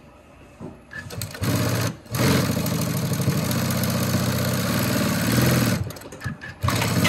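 JUKI LU-2810V-7 direct-drive industrial lockstitch sewing machine stitching through about eight layers of heavy fabric. It gives a short burst about a second and a half in, then after a brief stop runs steadily with a rapid needle rhythm for a few seconds. It stops near six seconds, followed by a few clicks.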